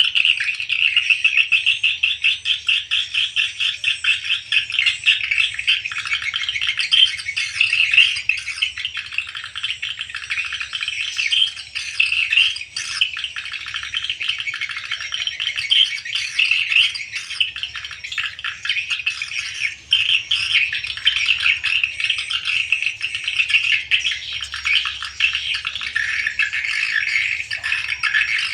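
Swiftlets twittering: a dense, continuous chatter of many rapid, overlapping high chirps, the sound of a large flock returning to a swiftlet house at dusk.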